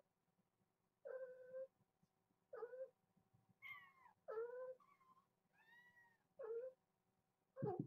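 Young kittens meowing over and over, about eight short calls in a row, some sliding up and down in pitch. These are kittens calling for their mother.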